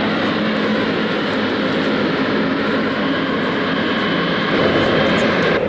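Steady jet aircraft noise, a high whine over dense noise, growing fuller about four and a half seconds in.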